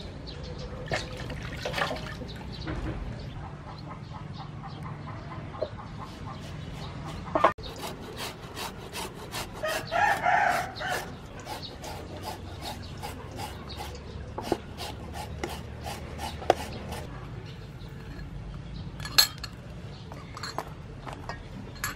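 Papaya being shredded with a hand shredder into a steel bowl: a steady run of short scraping strokes, about two to three a second. A rooster crows once about ten seconds in.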